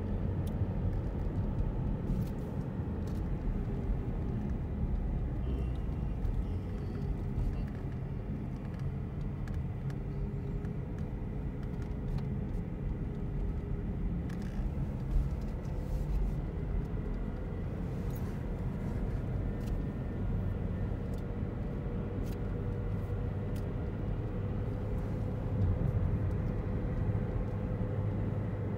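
Car cabin noise while driving: a steady low rumble of tyres and engine with a faint hum over it.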